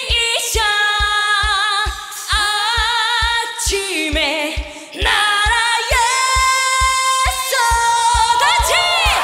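A woman sings a trot song live with a full backing band, holding long notes with vibrato over a steady kick-drum beat of about two and a half beats a second.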